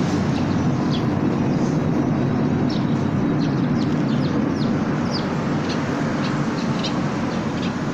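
Steady low background rumble, with small birds chirping in short, high, falling notes several times throughout.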